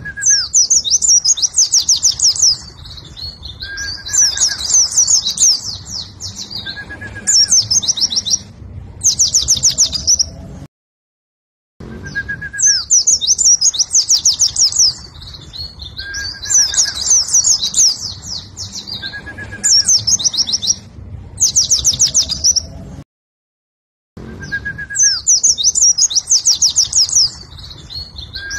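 Caged white-eye (pleci) singing loud bouts of fast, high trilling notes, each a second or two long, some led by a short lower whistle. The same sequence of bouts repeats about every twelve seconds, with a second of dead silence between repeats.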